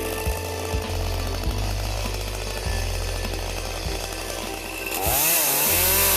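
Echo CS-310 two-stroke chainsaw running. About five seconds in its pitch dips and climbs again, with a loud hiss.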